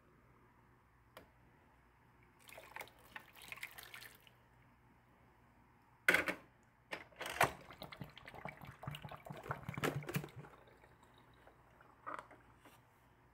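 Water poured from a glass into a Keurig coffee brewer's water reservoir, with sharp plastic clicks and knocks as the reservoir lid and brewer handle are handled.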